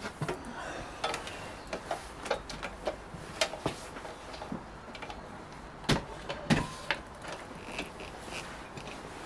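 Irregular metal clicks, knocks and light scraping as a bank of four carburettors is handled and pushed onto the rubber intake boots of a 1976 Honda CB400 Four's engine, with the loudest knocks about six seconds in.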